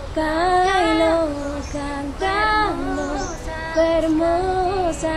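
A girl singing solo in Galician, a song in the manner of a medieval Galician-Portuguese cantiga de amigo, in long held phrases that slide between notes, with no accompaniment.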